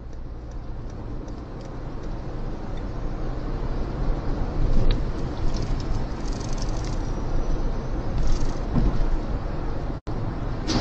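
Driving noise of a car heard from inside its cabin in a road tunnel: a steady rumble of tyres and engine that grows louder over the first few seconds, with the sound cutting out for an instant near the end.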